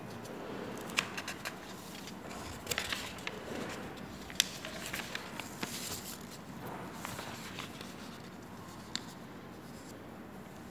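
Faint paper rustling and scattered light clicks as notebook pages are handled and turned.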